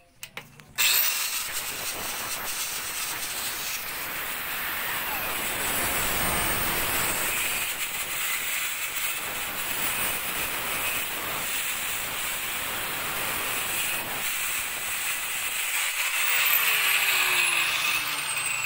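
Small corded angle grinder with a cut-off disc, switched on about a second in and running steadily with a hissing whine as it cuts through blue PVC pipe.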